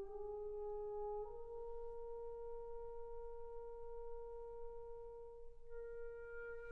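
Slow background music of long held notes: the melody steps up twice, settles on one long sustained note, and a higher line joins near the end.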